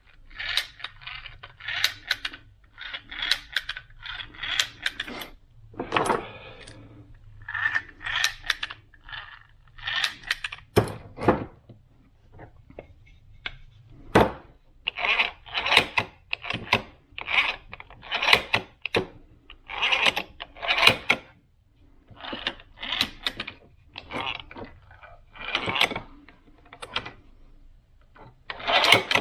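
Throttle bodies from a BMW M6 V10 being pushed open by hand and let spring back shut, over and over: a run of short metallic clicks and clacks as the throttle plates and actuator gears return to their stops.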